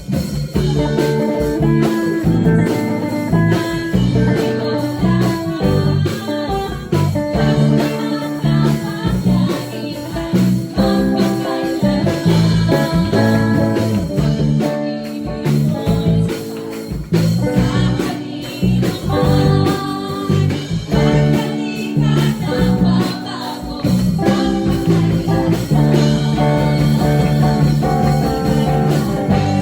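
Praise-and-worship song playing: band music with guitar and a singing voice.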